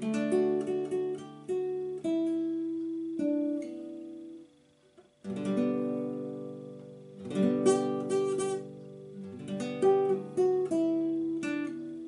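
Acoustic guitar music: chords struck and left to ring, with a brief pause about five seconds in.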